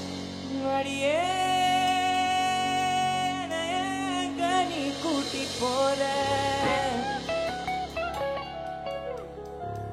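Singing over live band accompaniment, with one long held note from about a second in that lasts some two and a half seconds, then a moving melodic line.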